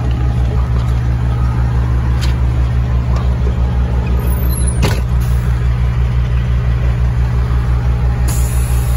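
Semi truck's diesel engine running steadily at low revs, heard from inside the cab as an even low throb. There is a single sharp click about five seconds in.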